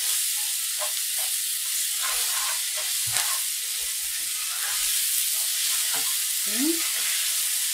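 Chopped zucchini frying in a pot with a steady sizzle, stirred with a wooden spoon that knocks against the pot now and then.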